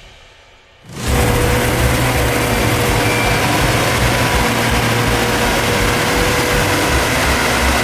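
BISI NISKALA102 combine harvester running steadily, a continuous engine rumble with a faint steady whine, cutting in suddenly about a second in as the music fades out.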